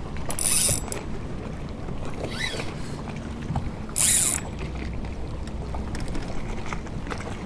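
Spinning-reel drag buzzing in two short bursts, about half a second in and again about four seconds in, as a hooked smallmouth bass pulls line against it. A low steady background runs underneath.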